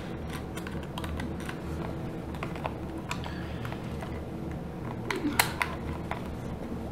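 Light clicks and taps of plastic as fingers work a small part into the back of a TI-83 Plus graphing calculator's case, with one louder click about five seconds in.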